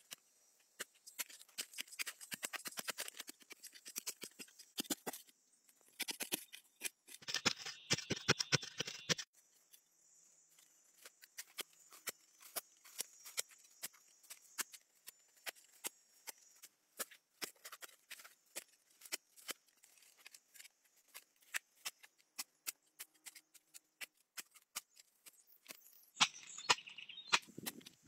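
Hand hoe digging into dry forest soil: a string of sharp ticks and knocks as the blade strikes and clods and debris fall, with two longer stretches of gritty scraping, about a quarter of the way in and near the end. A faint steady high hiss lies underneath.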